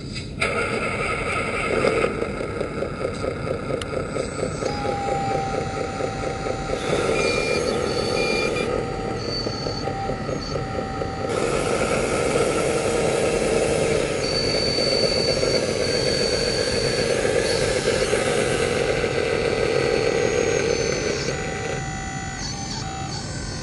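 1/14-scale RC wheel loader working: its motors run with a steady mechanical whine that switches on and off and changes every few seconds as the loader pushes into a dirt pile, tilts its bucket and raises a heaped load of dirt.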